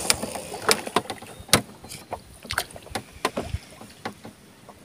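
Irregular sharp clicks and light knocks from a spinning rod and reel being handled aboard a small boat right after a cast, a few each second at first and thinning out towards the end.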